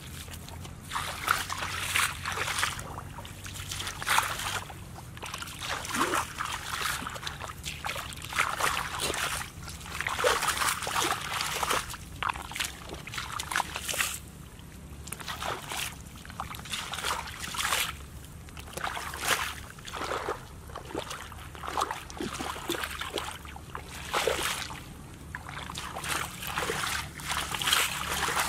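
Bare feet splashing and sloshing through shallow muddy water, one irregular splash after another with each step.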